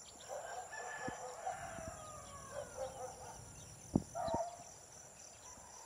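Faint animal calls: one long pitched call falling slightly over about three seconds, then a short call about four seconds in, with a soft knock just before it.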